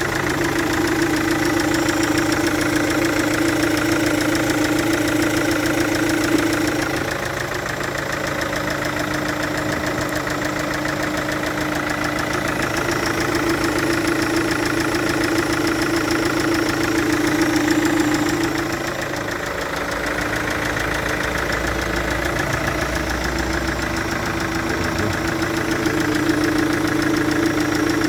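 Chevrolet Captiva VCDI four-cylinder common-rail diesel running steadily with a rapid, regular pulsing, the noise of combustion gas leaking past one injector's seat (an injector compression leak). A short click about six seconds in, and the level swells slightly and dips about two-thirds of the way through.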